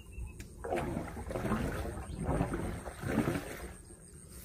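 Water sloshing in a shallow drainage culvert in about four rhythmic surges under a low rumble, stirred by a stick pushed in to flush fish out, fading out near the end.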